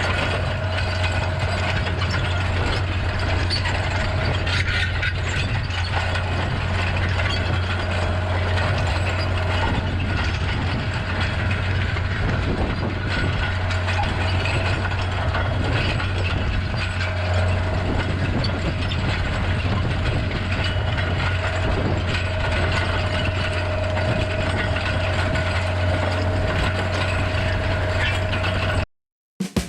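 Tractor engine running steadily under load while pulling a disc plough, with a continuous low drone and a constant mechanical rattle. It cuts off suddenly near the end.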